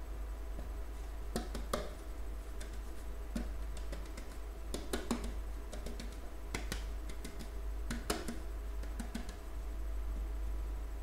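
Metal cake pan being tapped and shaken by hand to spread flour over its buttered inside: irregular light knocks and clicks, one every second or so, over a steady low hum.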